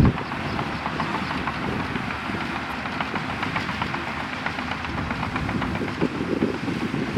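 Crawler bulldozer working, its diesel engine running under a dense, rapid clatter of clanking steel tracks; a deeper, pulsing engine rumble comes back near the end.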